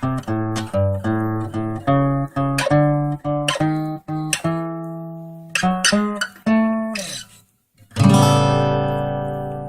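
Solo guitar playing a slow blues: a run of single-note phrases, one of them bent downward about seven seconds in, then a brief stop and a chord struck about eight seconds in and left to ring.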